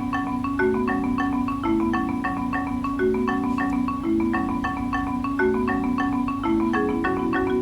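Background music: an upbeat tune of quick, repeating mallet-like plucked notes over a steady lower line.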